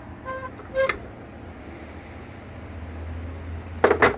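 Two short horn toots in the first second, over a steady low hum, then a few sharp knocks near the end.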